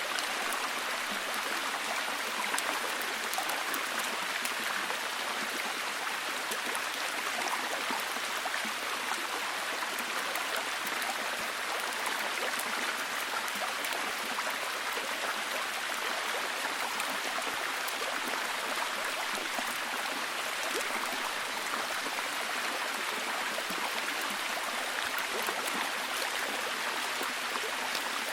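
Steady heavy rain falling, an even hiss of water with many small drop patters.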